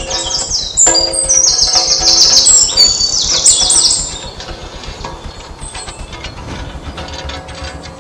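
Birds chirping: rapid runs of high, falling chirps, loud for the first four seconds and fainter after, over a low steady drone.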